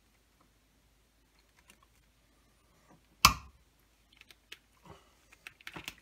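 Hand wire stripper closing on a wire: one sharp click about three seconds in, then a run of small clicks and ticks as the wires are worked.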